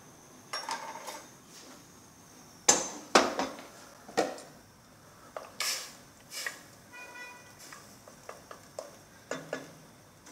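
Kitchen handling sounds: a string of separate knocks and clinks of utensils and containers on a counter and pot, with plastic bags being handled, and a short squeak about seven seconds in.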